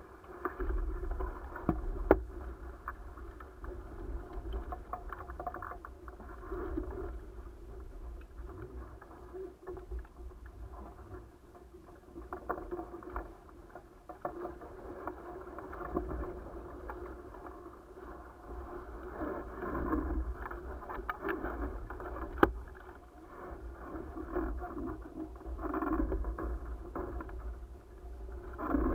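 Water rushing and splashing past the hulls of an A-Class catamaran under sail, with low wind rumble on the microphone, rising and falling in waves. Two sharp knocks, one about two seconds in and one about two-thirds of the way through.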